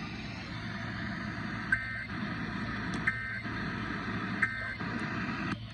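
Emergency Alert System end-of-message data signal: three short bursts of rapid two-tone digital warbling, about a second and a third apart, over a steady broadcast hiss and hum that cuts off suddenly near the end.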